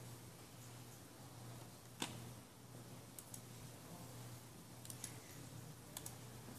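Computer mouse clicking a few times, the loudest click about two seconds in, over a faint steady low hum.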